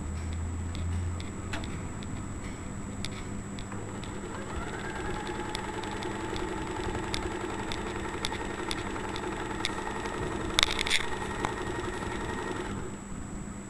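Usha electric sewing machine running: a steady motor whine with the needle ticking as it stitches, starting about four seconds in and stopping near the end, with a few louder clacks shortly before it stops.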